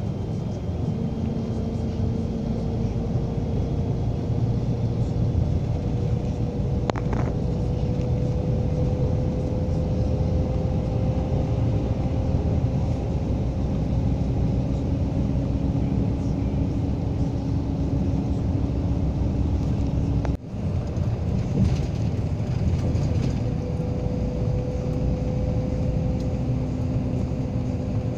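Steady road and engine drone heard from inside a moving vehicle: a low rumble with a faint hum that slowly rises in pitch. The sound drops out for an instant about twenty seconds in.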